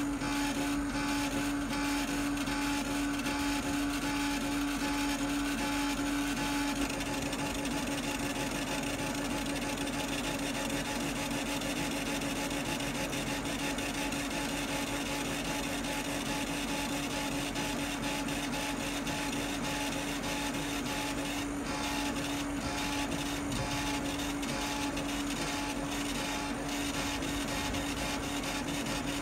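40 W CO2 laser cutter raster-engraving: the head's stepper motors whirring in rapid back-and-forth passes over a steady hum. The sound drops slightly about seven seconds in.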